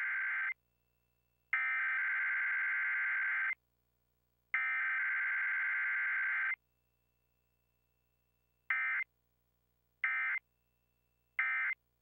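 Emergency Alert System SAME data tones coding a Required Weekly Test: the end of one header burst, then two more header bursts about two seconds long, a second apart. About two seconds later come three short end-of-message bursts, each a fraction of a second.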